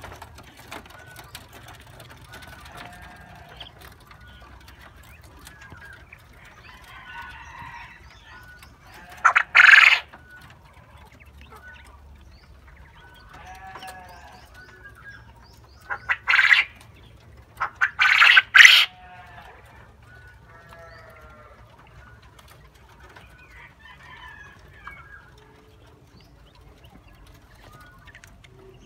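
Coturnix quail crowing: three loud, harsh crows, each broken into quick pulses. The first comes about nine seconds in and two more follow close together about seven seconds later, over soft chirps and chatter from the flock.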